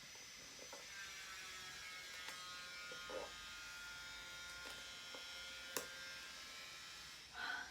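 Scotch tape being peeled slowly off a cardboard box, giving a faint, steady buzzing rasp with a few sharp ticks as the adhesive lets go.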